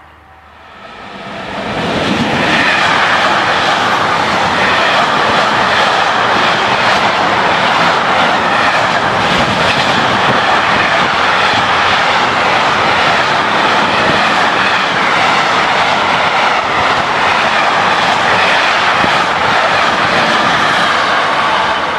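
Intermodal container freight train running past close by at speed: a steady, loud rush and rumble of wagon wheels on the rail that builds over the first two seconds, then holds.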